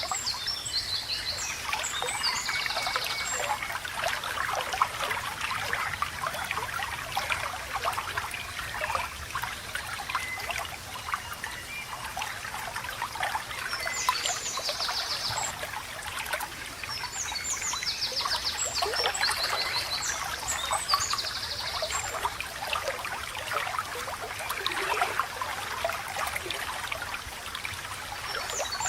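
Small stream babbling and trickling over stones, steady throughout, with birds chirping high, rapid phrases in short bursts several times.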